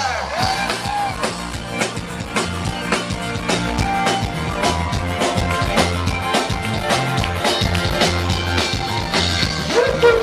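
Live band playing an instrumental stretch of a song, with a drum kit keeping a steady beat over bass.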